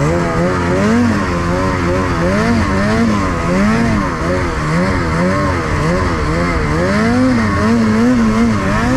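Snowmobile engine revving up and down over and over, its pitch rising and falling roughly every second as the throttle is worked on and off, over a steady rushing noise.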